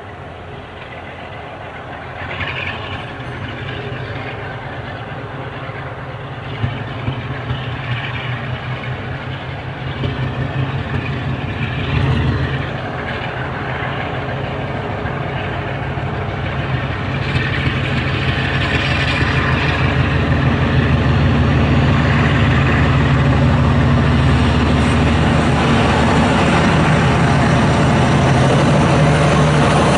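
Heritage diesel locomotive's engine running with a deep, steady note, growing steadily louder as the locomotive approaches.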